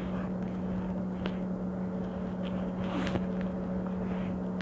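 Soft rubbing and faint ticks of hands rolling pretzel dough ropes on a wooden tabletop, over a steady low hum.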